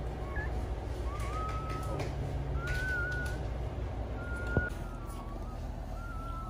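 Newborn German Shepherd puppies squeaking and whining: about five short, thin, high-pitched whines over a steady low hum.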